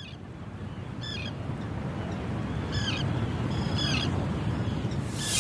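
A bird calling four times, short sharp calls about a second apart, over a low steady rushing background that fades in and grows louder.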